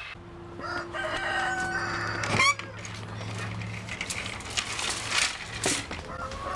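Rhode Island chickens calling: a long crow rises in pitch and breaks off at its loudest about two and a half seconds in, with clucking around it. Footsteps rustle through dry leaves on the coop floor a little later.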